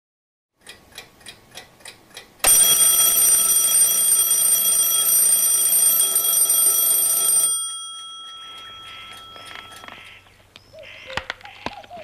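Alarm clock ticking about four times a second, then ringing loudly for about five seconds before it stops. The ticking goes on faintly afterwards, and a few sharp knocks come near the end.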